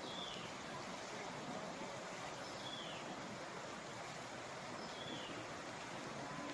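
Steady hiss of falling rain, with a bird giving a short descending call three times, about every two and a half seconds.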